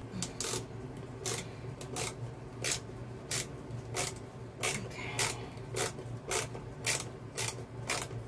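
Wood screw being turned in by hand through a small metal hinge into a wooden board: a short scraping sound with each twist of the screwdriver, evenly repeated about one and a half times a second.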